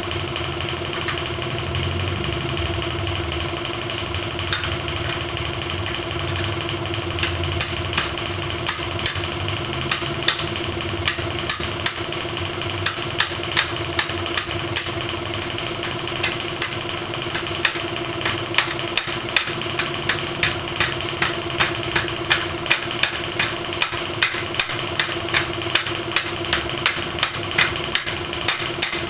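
A motor runs with a steady hum and a high whine. From about seven seconds in, sharp knocks repeat about twice a second over it.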